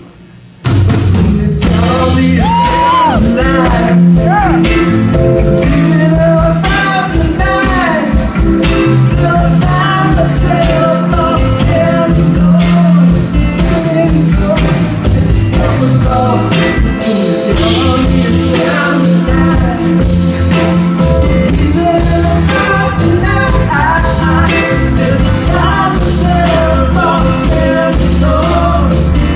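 Live band playing a rock-and-soul song, with a lead singer over drums, bass, guitar and keyboard. After a brief hush, the full band comes back in less than a second in.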